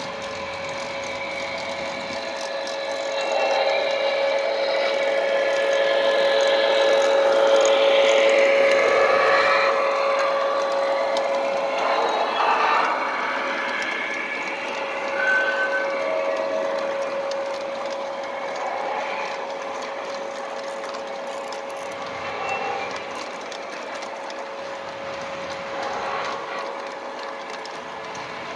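Lionel O-gauge Rock Island GP7 model diesel and its freight cars running past on metal three-rail track: a steady hum with the rumble of wheels on the rails. It grows louder to a peak about eight seconds in as the locomotive passes close, then slowly fades as the string of cars rolls by.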